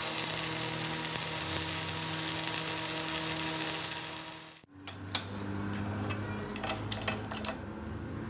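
Electric arc welding building up weld on a broken truck trunnion shaft: a steady hiss of the arc over a hum. It cuts off sharply about four and a half seconds in, leaving a quieter low hum with scattered clicks.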